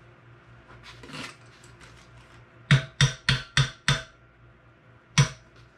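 Metal burner parts of a propane forge knocking against its steel body: five sharp taps with a short metallic ring in quick succession about three seconds in, then one more near the end.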